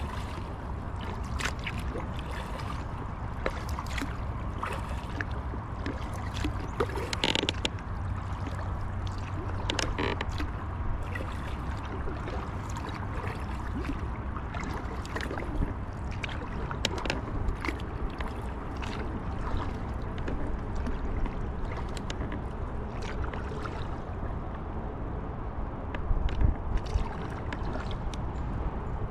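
Kayak being paddled: paddle strokes in the water with scattered light clicks and knocks, over a steady low rumble.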